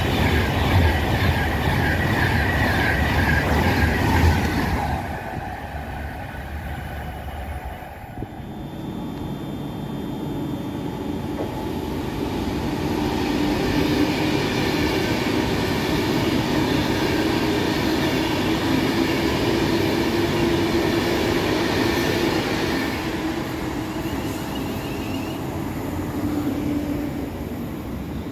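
Trains running through on the line: one loud in the first few seconds, then after an abrupt change about eight seconds in, another train building up and running steadily with a level hum and whine, easing off near the end.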